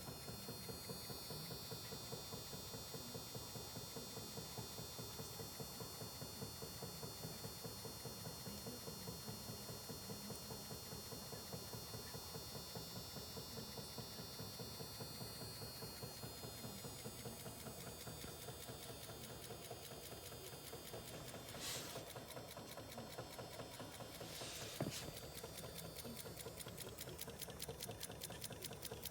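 Small home-built electric motor-generator rig running steadily, with a fast, even ticking and a faint high whine. There are two brief knocks near the end.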